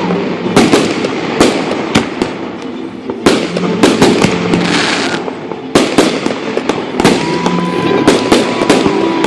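Fireworks display: rapid, overlapping cracks and bangs, many in quick succession, with a steady whistling tone for the last couple of seconds.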